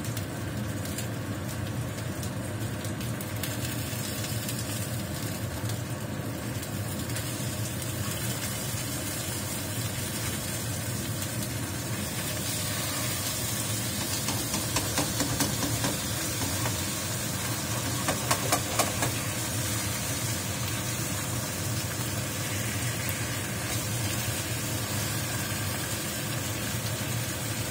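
Two threadfin fish sizzling steadily as they dry-fry in a nonstick frying pan. A spatula scrapes and taps in the pan a few times past the middle as the fish are turned over.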